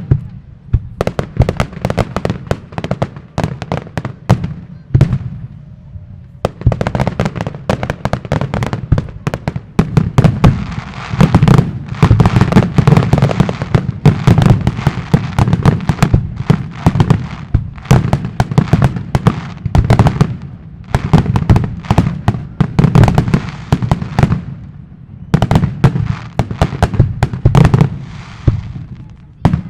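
Fireworks display: shell bursts and bangs in rapid, near-continuous succession with a low rumble beneath, thinning briefly about five seconds in and again near twenty-five seconds.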